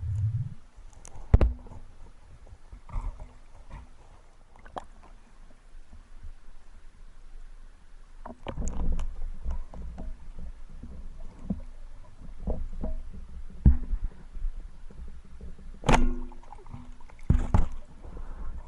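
Scattered knocks and thumps over a low rumble, with a few sharper knocks standing out, the loudest about a second in and again near the end, as from gear moving and being handled in or on water.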